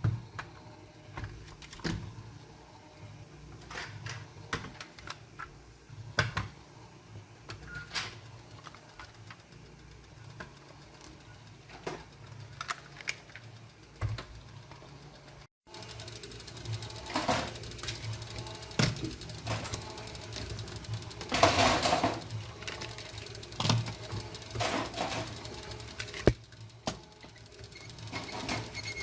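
Small die-cast and plastic toy cars being handled: scattered light clicks and taps as parts are worked and the cars set down, over a low steady hum. The clicking grows busier after a brief break about halfway through.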